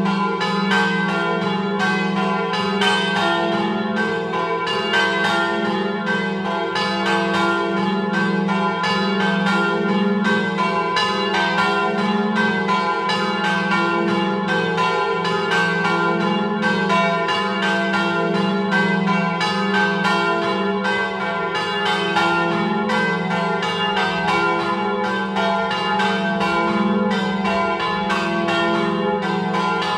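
Peal of three swinging church bells in F3 flat, rung in the Friulian 'a slancio' style: two cast by G.B. De Poli in 1930 and 1951 and one by Alfonso Clocchiatti in 1963. They strike one after another in a continuous, overlapping stream over a steady low hum.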